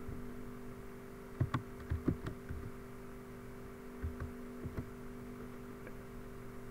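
A few scattered computer keyboard keystrokes, short clicks in small clusters, over a steady electrical hum.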